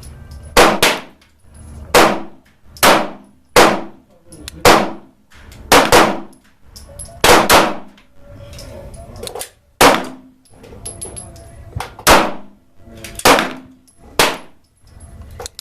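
Gunshots on a shooting range: about fifteen sharp reports at irregular intervals, some in close pairs, each with a short echoing ring-out.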